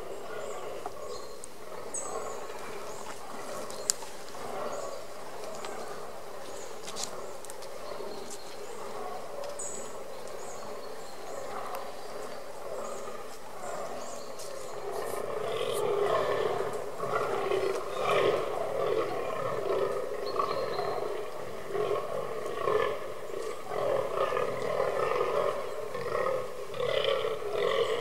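Fallow bucks groaning in the rut: repeated deep, belching grunts that grow louder about halfway through.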